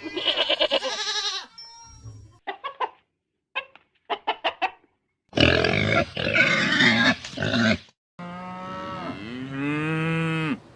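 Several different farm animals calling one after another in separate short bursts. About eight seconds in comes a cow's long moo that rises in pitch and cuts off sharply.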